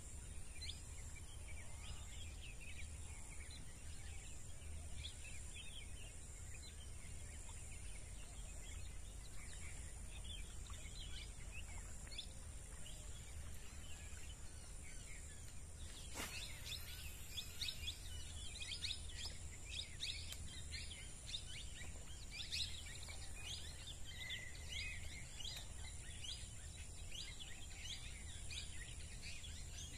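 Wild birds chirping in many short calls, busier in the second half, over a steady high-pitched hum and a low background rumble. A single sharp click about halfway through.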